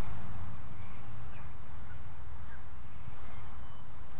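Wind buffeting the camera's microphone: a steady low rumble, with a few faint short high chirps over it.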